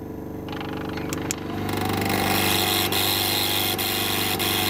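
Small petrol generator engine running steadily, growing louder over the first two seconds and then holding level.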